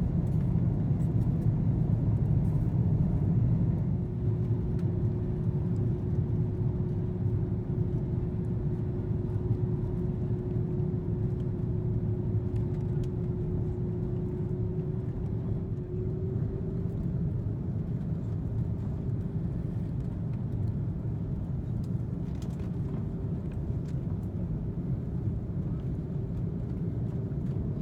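Cabin noise of an Airbus A330-300 on final approach and landing, heard inside the cabin: a steady low rumble of engines and airflow. A faint steady hum runs through the middle and stops about sixteen seconds in.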